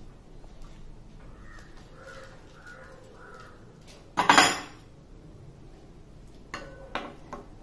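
A small steel bowl being handled over a plate as sev is sprinkled by hand, with a few short clinks of the steel near the end. About four seconds in comes a single loud, harsh sound lasting about half a second.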